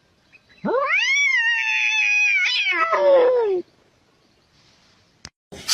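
A domestic cat giving one long, drawn-out meow of about three seconds that rises at the start and sinks lower at the end, followed by a short click.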